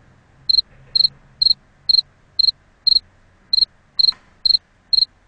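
Cricket chirping: short, high-pitched chirps about twice a second, each a quick double pulse, in the pause where the song's music has stopped. It is the 'crickets' silence gag marking an awkwardly long gap.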